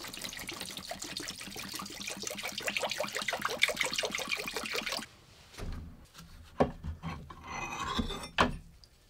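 Liquid poured from a jug into a plastic tub, splashing and gurgling over a rusty metal part, which stops suddenly about five seconds in. After that come a few sharp knocks and a short slosh as a metal part is lowered into the liquid and moved around.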